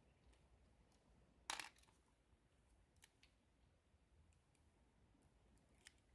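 Faint, sparse clicks of a lock pick and tension wrench working the pins of a Euro thumb-turn cylinder lock, with one louder click about a second and a half in.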